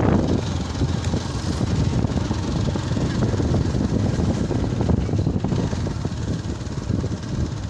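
Motorcycle engine running steadily under way, with wind buffeting the microphone. A louder rush of noise cuts off just after the start.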